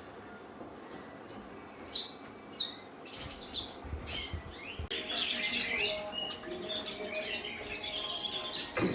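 Caged colour canaries calling: a few loud separate chirps about two seconds in, then from about halfway a continuous fast, high warbling song from cock birds. A single short knock near the end.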